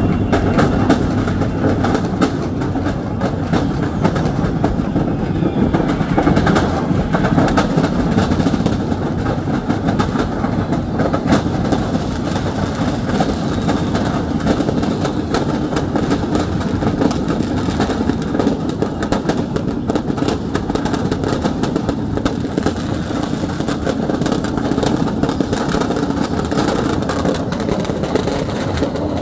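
Stock of firecrackers burning and going off in a fireworks shop fire: a dense, unbroken crackling clatter over a steady rumble.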